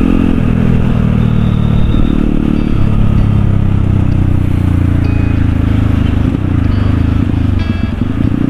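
Motorcycle engine running under way, heard from the rider's seat. The engine note shifts in pitch several times, then dips and climbs again near the end as the throttle is eased off and opened.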